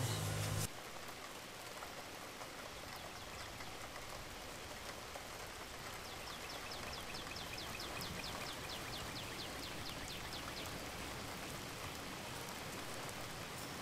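Steady, even rain-like hiss. A low hum cuts off abruptly just under a second in, and for about four seconds in the middle comes a run of quick high ticks, about six a second.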